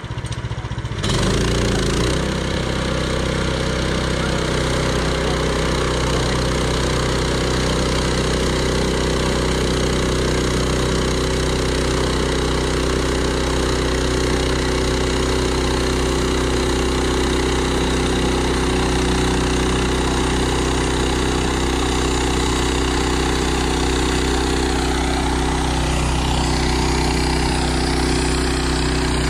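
Portable bandsaw sawmill's small gasoline engine picks up speed about a second in, then runs steadily under load as the band blade cuts along a log.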